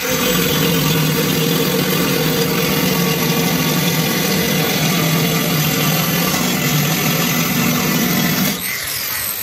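Angle grinder fitted with a diamond core bit boring a round hole through ceramic tile, its motor running at a steady pitch under load with the bit grinding against the tile. The steady tone breaks off about eight and a half seconds in.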